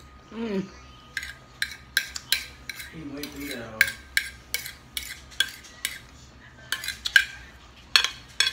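A metal fork clinking and scraping against a plate, striking about twice a second as food is speared, starting about a second in.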